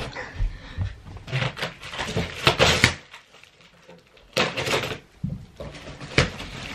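A large cardboard shipping box being handled and cut open with scissors: low thuds of the box against the floor and several short scraping, tearing bursts of cardboard and packing tape, the loudest about two and a half and four and a half seconds in.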